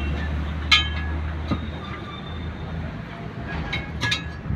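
Steel tyre lever clinking against a steel truck wheel rim while prying the tyre bead, each strike ringing briefly: once about a second in, then several in quick succession near the end. A low steady hum sits underneath and fades about halfway.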